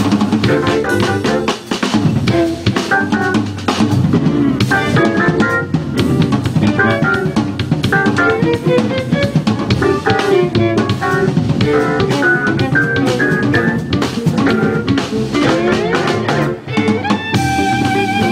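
Live jazz band playing an instrumental tune, the drum kit busy and prominent over upright bass, with short melodic notes from violin and keyboard above. Near the end longer held notes come in.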